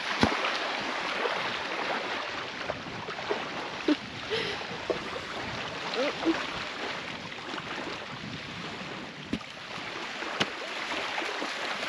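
Small waves washing steadily onto a sandy beach, broken by a few short sharp knocks.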